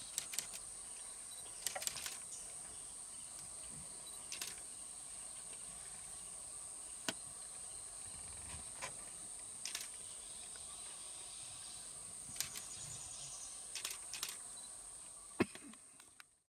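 Insects droning steadily on one high pitch, with a dozen or so short, sharp clicks and ticks scattered through it. The sound fades out near the end.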